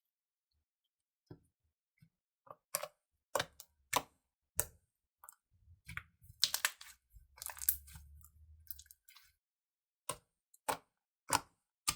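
Slime being squished and worked by hand: a series of sharp sticky clicks and pops, with a denser crackling stretch in the middle.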